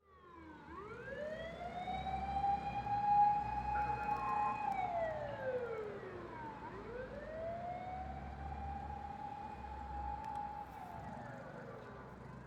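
Emergency vehicle siren wailing through two slow cycles. Each cycle rises for about a second, holds a steady high tone for several seconds, then slides back down. A low rumble of traffic runs underneath.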